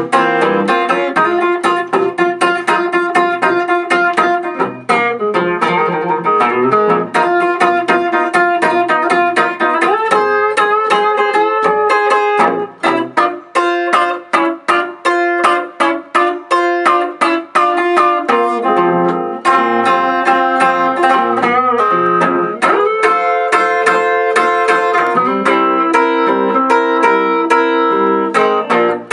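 Blues guitar playing an instrumental break: picked single notes and chords in a steady rhythm, turning to short, choppy, detached notes about halfway through before the fuller playing returns.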